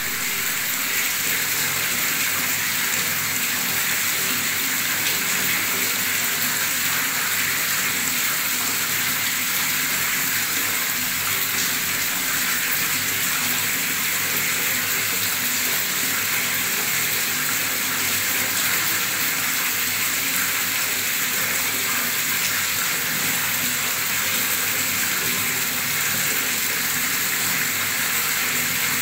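Strong stream of tap water pouring into standing water, splashing and bubbling steadily.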